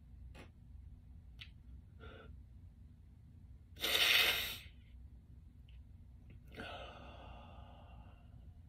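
A man's breathing in a pause between sentences: one sharp, loud breath about four seconds in, then a longer, softer sigh near the end, over quiet room tone.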